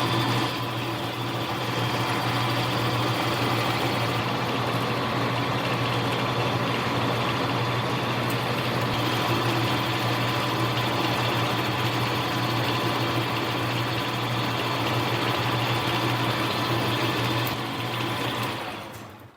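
Small benchtop lathe running steadily while a split-point drill bit is fed from the tailstock into the spinning part, with an even low hum. The machine stops near the end.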